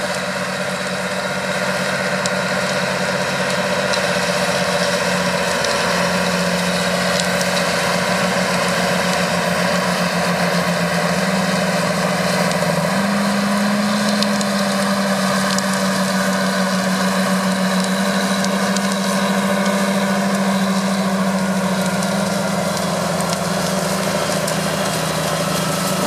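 John Deere 8330 tractor's six-cylinder diesel engine running steadily under load while pulling a Väderstad Carrier 625 XL disc cultivator through stubble, with the discs working the soil. The engine note steps up slightly twice, about six and thirteen seconds in.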